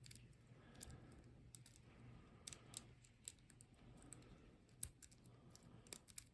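Faint, irregular clicks and ticks of a lock pick working the pins inside a five-pin padlock cylinder, with a faint low hum under them.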